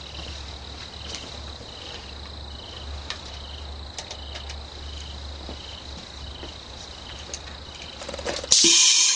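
Crickets chirping steadily over a low hum. Near the end comes a sudden loud half-second blast of compressed air: the pneumatic pumpkin cannon's solenoid valve firing, the 'sneeze'.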